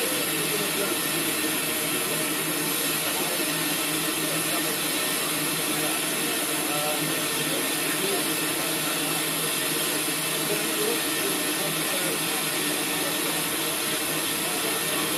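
Steam locomotive letting off a steady hiss of steam as it moves slowly, with no exhaust beats.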